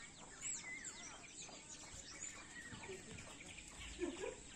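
Birds chirping: many short, quick, overlapping calls, with a brief lower call about four seconds in.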